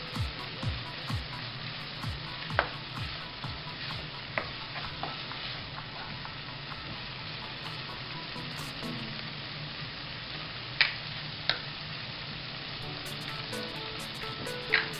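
Corned beef with onion and garlic sizzling in oil in a nonstick frying pan while a wooden spoon stirs and scrapes it around, with a few sharp clicks of the spoon along the way.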